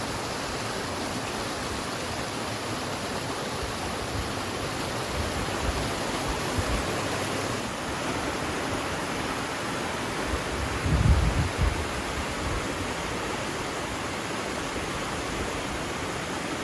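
Rushing mountain water from a waterfall, a steady, even rush. A brief low rumble about eleven seconds in.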